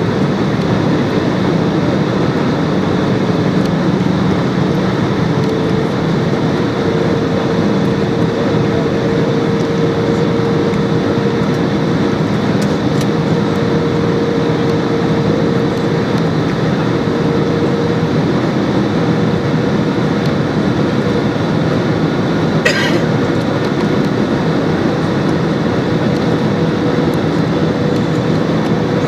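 Steady roar of a jet airliner's engines and rushing air heard inside the passenger cabin during the approach to landing, with a steady hum through it. A single brief click comes about two-thirds of the way through.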